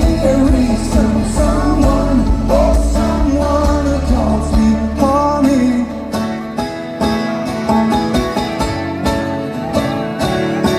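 Live folk-rock band playing, with banjo and guitar. A heavy low end carries the first six seconds, then drops away, leaving lighter plucked and strummed strings.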